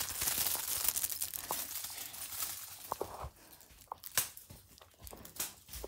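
Crinkling and rustling with many light clicks, busy for the first two or three seconds and then thinning to a few scattered clicks.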